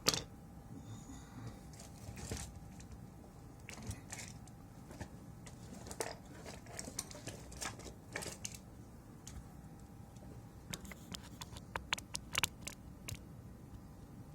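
Scattered small clicks and taps of tools and parts being handled on a workbench, with a quick run of sharper clicks near the end.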